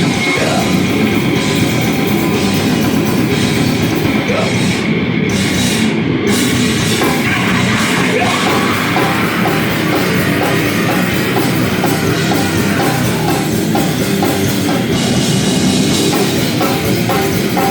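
A heavy band playing live and loud: drum kit with amplified, distorted instruments in a dense, continuous wall of sound.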